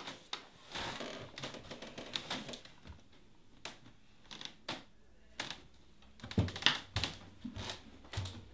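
Irregular light clicks, knocks and rustling of a person moving about a room and handling things, with a few louder knocks and thumps about six and a half seconds in.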